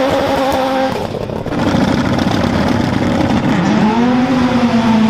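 Rallycross Supercar engines on the start grid revving up and holding high, steady revs while waiting to launch. The pitch climbs and holds twice, near the start and again about four seconds in.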